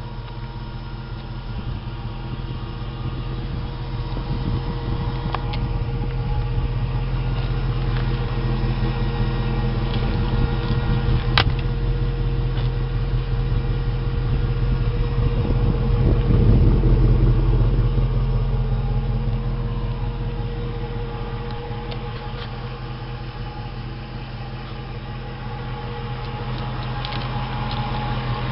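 2004 Jeep Grand Cherokee V8 idling with a strange noise that the owner thinks may be the fuel pump. The sound grows louder towards the middle and eases off again, with one sharp click a little before the peak.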